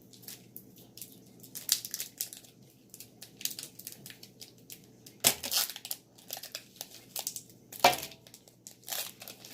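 Foil wrapper of a Pokémon booster pack crinkling and crackling as it is handled and torn open, in irregular bursts with two louder crackles, about five and eight seconds in.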